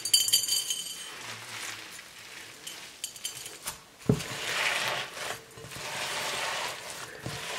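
Slime packed with small stones being kneaded and squeezed by hand in a glass bowl: a run of crunchy clicks and crackles, with a dull thump about four seconds in as it is pressed down against the bowl.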